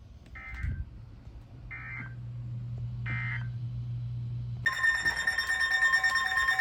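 Emergency Alert System header: three short bursts of SAME data warble, about one and a half seconds apart, then the steady EAS attention tone starts about four and a half seconds in and holds, with a low hum underneath.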